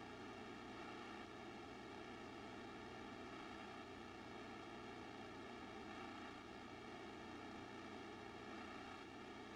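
Near silence: steady room tone with a faint even hiss.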